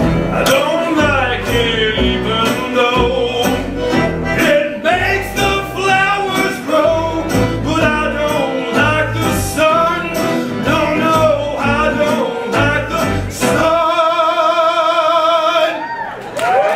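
Live country-style band music: singing over acoustic guitar, accordion and lap steel guitar with a steady low beat. About two seconds before the end the beat drops out and a single wavering held note sounds, then the music cuts off abruptly.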